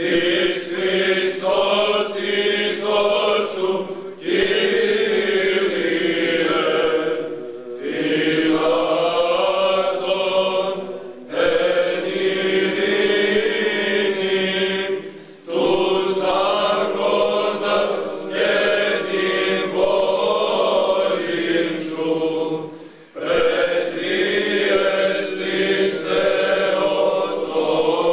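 A group of male chanters singing Greek Orthodox Byzantine chant together, in long sustained phrases with brief pauses for breath every few seconds.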